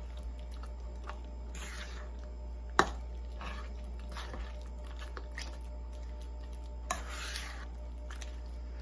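Metal spoon working raw eggs into a soft, sticky yeast dough in a stainless steel bowl: soft squishing and scraping. A sharp clink of the spoon against the bowl comes a little under three seconds in, and a smaller one near the end.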